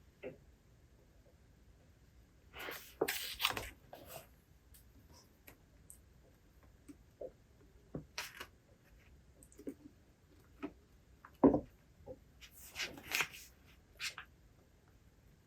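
Paper rustling twice, about ten seconds apart, as book pages are turned, with light taps and clicks of handling between and one sharper knock.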